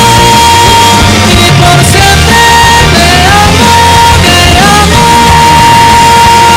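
Very loud rock music with a high, piercing voice or voice-like sound that slides up into long held notes, the longest held through the last seconds, played as a mock 'acoustic weapon'.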